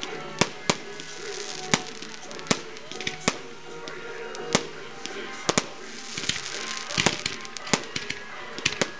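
Fireworks going off: a dozen or more sharp bangs and cracks at irregular intervals, coming thicker in the second half, over background music.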